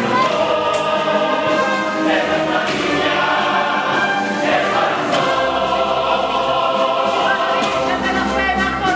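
A school choir singing a devotional song to the Virgin, several voices together holding long notes that change in phrases.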